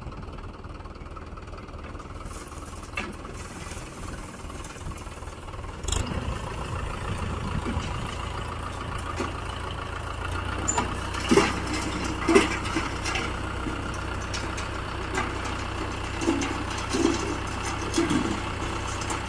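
Heavy diesel engine running steadily, picking up about six seconds in, with a knock and several clanks over it later.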